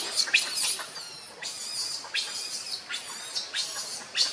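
Repeated short, high-pitched chirping calls, about two or three a second, with a quick trill about a second in.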